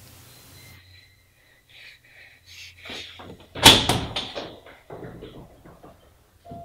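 A door being handled, with a few knocks and rattles and one loud bang about three and a half seconds in.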